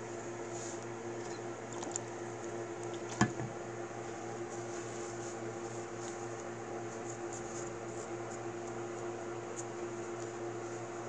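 Faint, squishy handling sounds of fingers working a freshly cast epoxy letter still wet with acetone, over a steady background hum with a constant tone. One sharp tap stands out about three seconds in.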